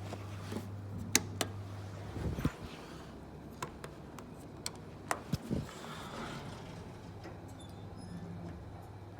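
Elevator running with a steady low hum that eases off about two seconds in and comes back near the end, with a handful of sharp clicks and knocks.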